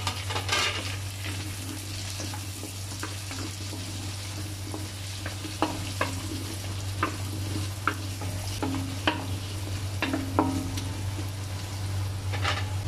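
Diced carrots, potatoes and bell pepper sizzling in hot oil in a stainless steel pan, stir-fried with a wooden spatula that knocks and scrapes against the pan every second or so.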